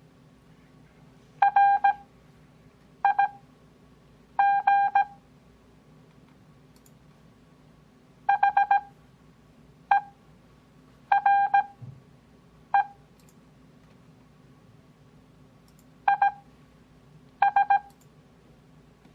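Computer-generated Morse code (CW) tone, one steady pitch, keying dits and dahs at 17 WPM character speed. About nine characters are sent, each a quick group of beeps, with long Farnsworth gaps of one to three seconds between them for an overall speed of about 6 WPM.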